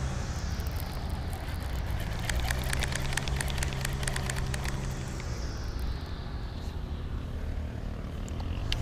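A motor vehicle passing by, a steady low hum with a hiss that slides down in pitch as it goes. A run of rapid faint clicks sounds about two to four seconds in.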